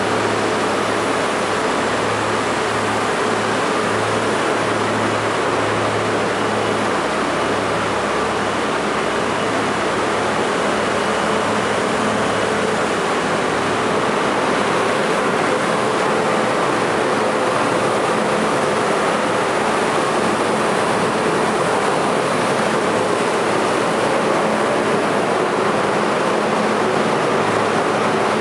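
Steady rumble and hiss of an R32 subway train standing at an underground station platform, with a low hum that fades out around the middle.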